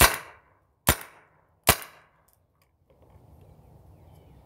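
Kingman Spyder Victor paintball marker firing three shots in quick succession, each a sharp pop with a short tail, the first two under a second apart and the third soon after. The marker is shooting properly after a full rebuild.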